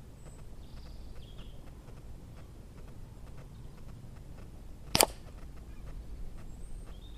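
An air rifle shot that hits and shatters a hanging chalk target: one sharp, very short crack about five seconds in. Birds chirp faintly in the background.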